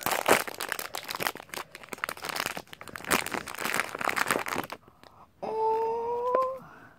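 Thin pink plastic toy wrapper crinkling and rustling in the hands as it is pulled open, in quick dense crackles. It stops near the end, followed by a short held high note, rising slightly, for about a second.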